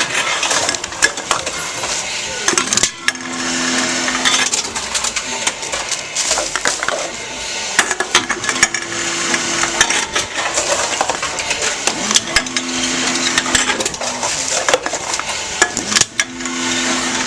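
Tomra T-x2 reverse vending machine taking in returned containers: continuous clattering and clicking of cans and bottles, with a short steady low tone repeating about every four seconds.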